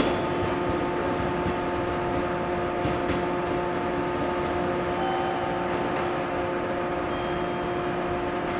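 Steady electric hum with a faint noisy rumble from a JR Kyushu 415 series electric train pulling slowly away, with a few faint clicks about three and six seconds in.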